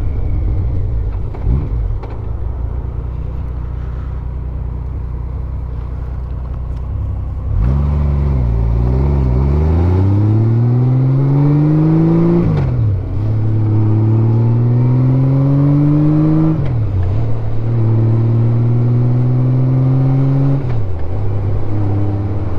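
Honda Gold Wing GL1500 flat-six engine running at a steady low note for several seconds, then accelerating: the pitch climbs, drops sharply at each upshift and climbs again, three shifts about four seconds apart.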